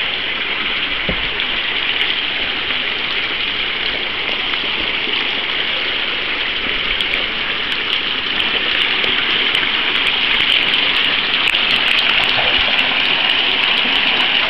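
Glacial meltwater rushing steadily as a loud even hiss, growing a little louder about eight seconds in.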